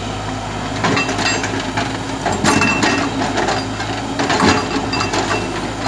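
JCB tracked excavator's diesel engine running steadily while its bucket scrapes and knocks against river stones, giving several sharp clacks and clatters of rock.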